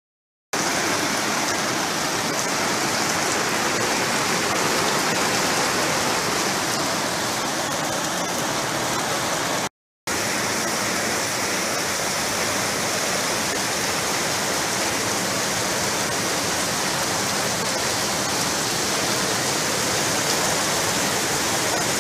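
Heavy rain pouring down in a steady, even hiss. It begins about half a second in and cuts out for a moment near the middle.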